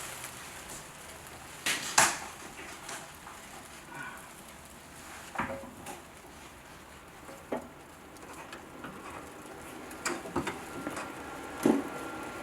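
A handful of separate sharp metallic knocks and clanks a few seconds apart, as of hand tools handled on sheet metal, over a low steady background. The loudest come about two seconds in and near the end.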